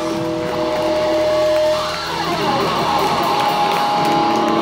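Live rock band playing loud, electric guitars in front with held, ringing notes and strumming, without singing.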